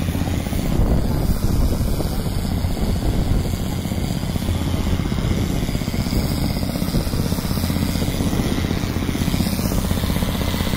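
Crawler blast-hole drill rig and its towed diesel air compressor running steadily, a low machine noise with a fast, even pulsing.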